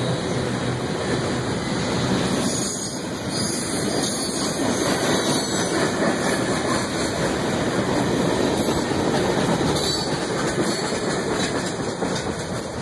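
Freight train cars (tank cars and boxcars) rolling past, with a steady rumble and clatter of steel wheels on the rails, easing off a little near the end as the last cars go by.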